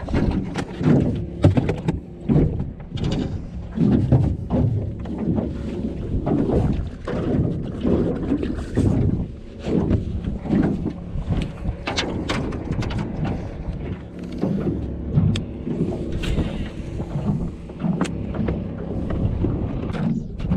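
Wind buffeting the microphone and small waves slapping an aluminium jon boat's hull, with scattered knocks and clicks from fishing gear and hands moving about the boat.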